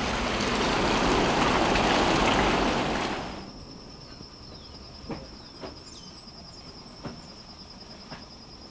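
Loud rushing noise of a 4x4 driving on a dirt track, which cuts off about three seconds in. Then a quieter outdoor scene: a steady high insect buzz, a few bird chirps, and four hollow knocks of plastic crates being stacked into a truck.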